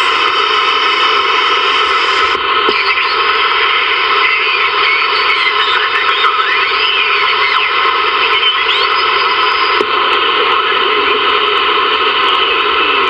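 Static hiss from a Ranger VR-9000 multimode CB receiver tuned across the upper 11-meter band around 27.6 MHz, with faint warbling, off-tune sideband signals in the hiss for a few seconds midway.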